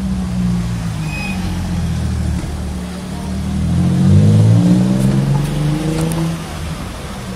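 Nissan 350Z's 3.5-litre V6 accelerating away. Its exhaust note first runs at low revs, then rises in pitch from about three seconds in, is loudest about four seconds in, and fades as the car moves off.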